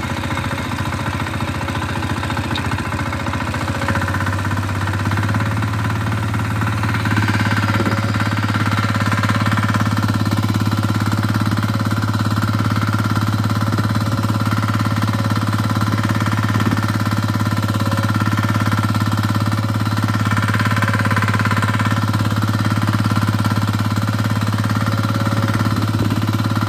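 Walk-behind tractor's single-cylinder engine running steadily under load as it pulls a plough through heavy, wet soil. A few seconds in, its pitch and loudness step up a little, and from then on it holds steady.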